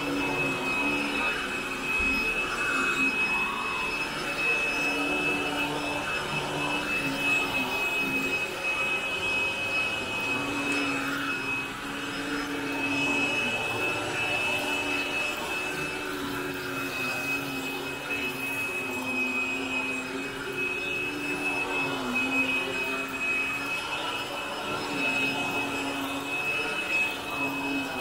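Upright vacuum cleaner running steadily while pushed back and forth over carpet, a high motor whine over a lower hum that wavers slightly in pitch with the strokes: pre-vacuuming dry soil out of the carpet before cleaning.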